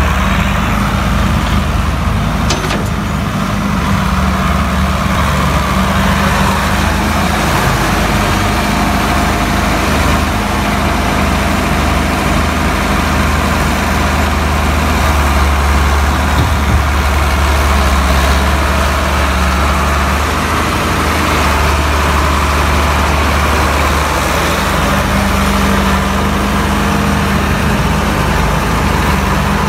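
Old tracked excavator's diesel engine running steadily as it digs and dumps soil, with a low, even drone that grows a little heavier near the middle.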